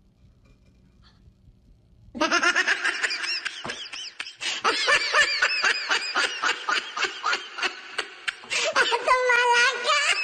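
A person laughing hard in quick, high-pitched bursts, starting about two seconds in after a nearly quiet start.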